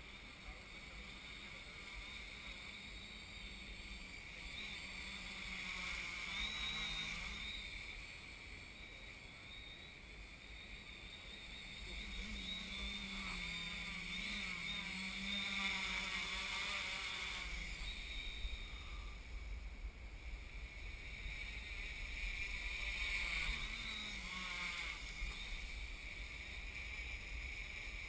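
Quadcopter's four brushless motors and propellers spinning: a steady buzzing whine whose pitch wavers and which swells and eases several times as the throttle changes.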